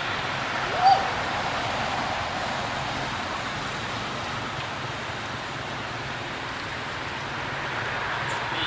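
A baby macaque gives one short squeaking coo about a second in, rising in pitch and then levelling off. Under it runs a steady background hiss.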